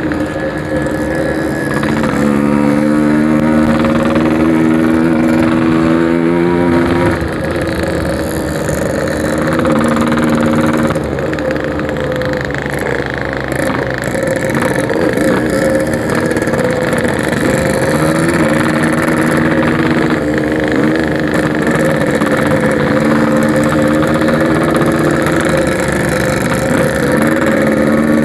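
Yamaha RX-King's 135cc two-stroke single-cylinder engine running under way through a packing-power exhaust, its pitch climbing steadily as it accelerates about two seconds in and again later, dropping back in between.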